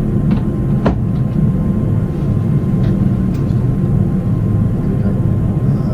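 Steady airliner cabin noise: the constant low rumble of engines and airflow heard inside the passenger cabin in flight, with a short falling squeak about a second in.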